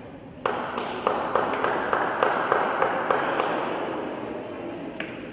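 Spectator crowd in a gym cheering, with a fast, even beat of sharp hits about three a second. It starts suddenly about half a second in and fades away over the last couple of seconds.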